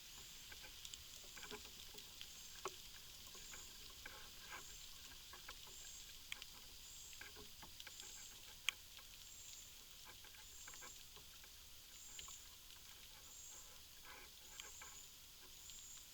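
Faint outdoor ambience: a high chirp repeating a little under once a second, with scattered small crackles and ticks and one sharper click about nine seconds in.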